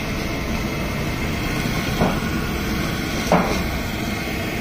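Steady, fairly loud rumbling background noise of an open-air street-food stall, with two short knocks about two and three and a half seconds in.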